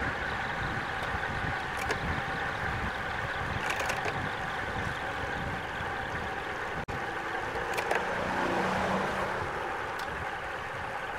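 Steady rush of wind over an action-camera microphone, mixed with road-bike tyre noise on tarmac at speed, with a few faint clicks.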